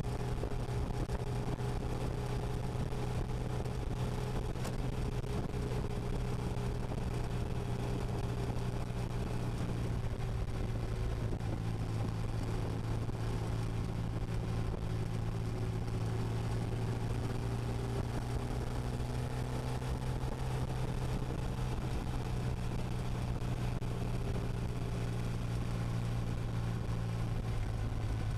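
Motorcycle engine running steadily at cruising speed, with wind and road noise; the engine pitch drifts only slightly.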